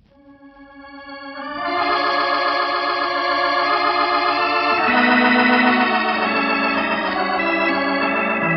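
Organ music bridge marking a change of scene: sustained chords swelling in over the first two seconds, moving to new chords about five seconds in and again near the end.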